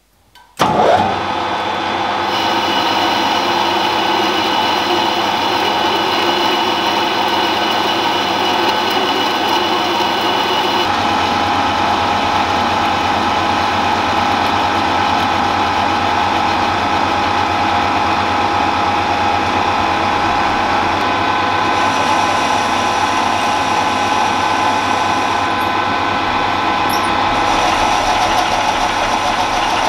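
Metal lathe switched on about half a second in, then its motor and headstock running steadily with a constant whine as the shaft turns in a steady rest. The tone shifts about eleven seconds in.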